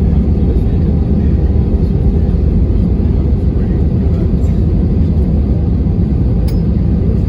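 Cabin noise inside an Airbus A320 rolling out on the runway after touchdown: a steady, loud low rumble from the airliner's engines and wheels, with one brief click near the end.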